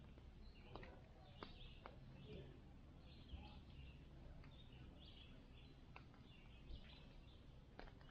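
Faint outdoor ambience: scattered soft bird chirps and a few sharp little clicks over a low steady rumble.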